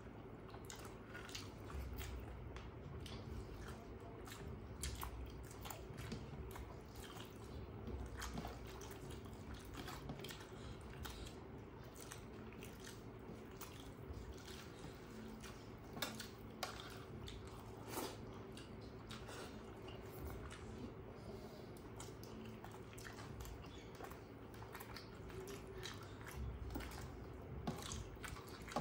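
Faint, close-miked eating sounds: wet chewing and lip smacks, with squishy sounds of rice and curry being mixed by hand on steel plates. Scattered small clicks throughout, a couple of sharper ones in the middle, over a faint steady hum.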